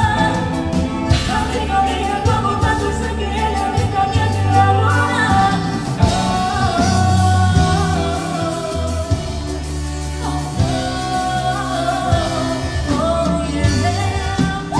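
Tejano cumbia band playing live, with a woman singing over accordion, bass guitar and drums.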